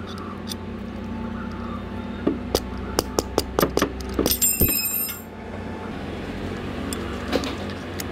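Steel combination wrench working a bolt on a truck's starter motor: a quick run of metallic clicks and clinks, about five a second, then a brief high metallic ring as the tool strikes metal.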